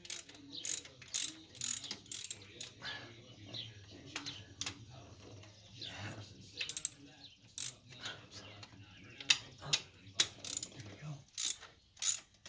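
Hand ratchet wrench clicking in short, irregular bursts as a fastener is worked loose.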